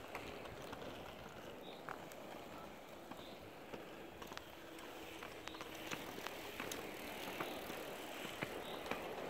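Inline skate wheels rolling over an asphalt path: a steady rolling noise with scattered light clicks.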